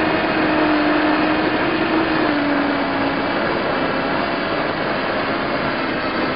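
Motors and propellers of a tiny Hubsan X4-clone quadcopter in flight, heard through the camera it carries: a steady whine that wavers and dips slightly in pitch as the throttle changes, over a loud rushing hiss.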